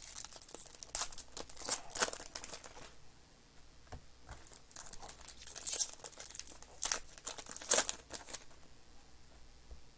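Foil trading-card pack wrappers crinkling and tearing as packs are opened and handled, in a string of short crackly rustles with several louder ones.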